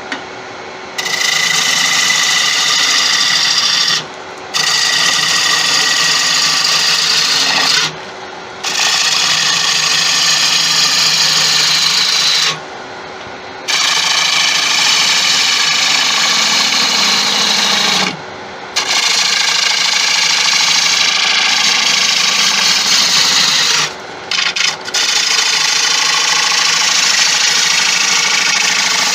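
Bowl gouge cutting the inside of a spinning wooden bowl on a wood lathe: a loud scraping, shearing hiss in about seven passes of a few seconds each, broken by brief pauses where only the lathe's steady hum is left.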